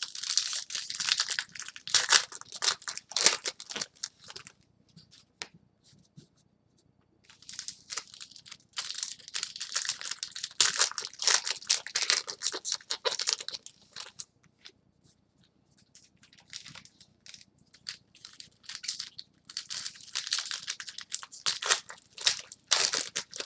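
Trading-card pack wrappers being torn open and crinkled by hand, in three spells of crackly tearing and rustling separated by quieter pauses.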